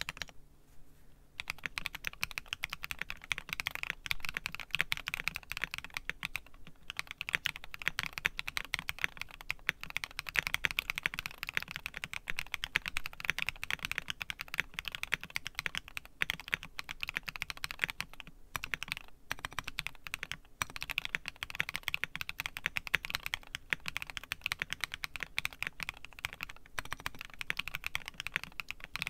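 Fast, continuous typing on a mechanical keyboard with lubed Durock POM switches and MT3 keycaps: a dense run of keystroke clacks that starts about a second in and breaks off briefly a few times.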